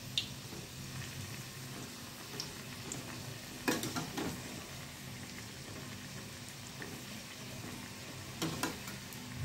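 Vegetable-stuffed dough pouches deep-frying in medium-hot refined oil in an aluminium kadhai, a steady sizzle. A metal turner clinks against the pan about four seconds in and again near the end as the pieces are turned over.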